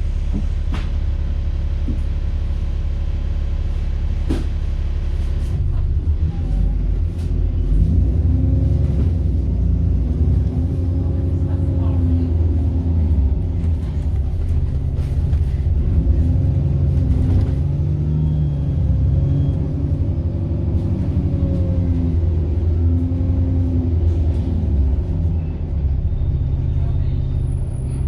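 Diesel bus engine heard from on board, ticking over steadily for a few seconds. It then pulls away and accelerates through its gears, its pitch rising and falling again and again, with a turbocharger whine.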